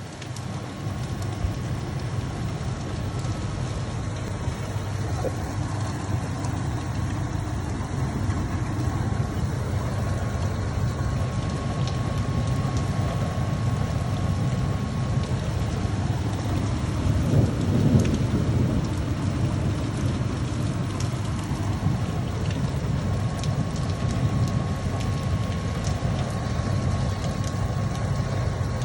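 Heavy rain pouring steadily, with a low rumble of thunder swelling briefly about two-thirds of the way in.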